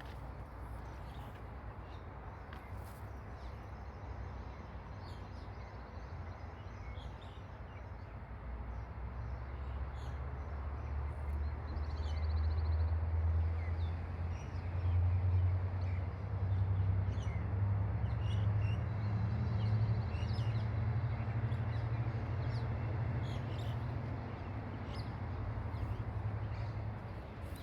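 Birds calling in short, scattered chirps over a steady low drone that swells about a third of the way in and eases off near the end.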